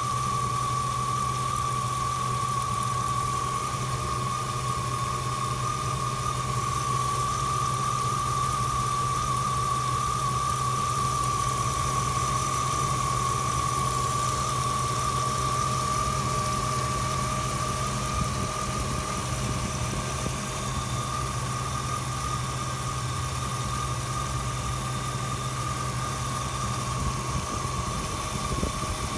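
Car engine idling steadily with a constant high-pitched whistle from under the hood. The whistle persists even after the power steering pump, its pulley, the idler pulleys and the water pump were all replaced.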